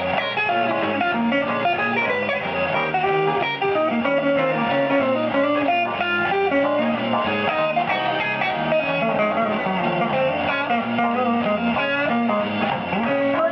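Guitar music with many quick plucked notes, played back from an ELEKIT TU-884CD tube CD player kit under test.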